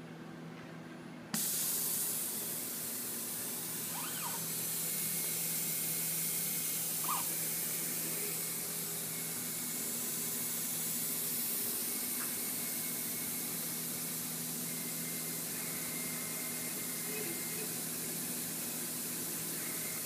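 MultiCam 3000 Series CNC router starting up and homing: a steady rush of hissing air switches on suddenly about a second in and runs on over a low steady hum, with faint short whines as the axes move.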